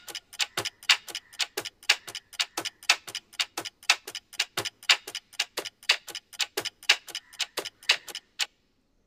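Countdown-timer ticking sound effect, a clock-style tick about four times a second, that stops suddenly just before the end.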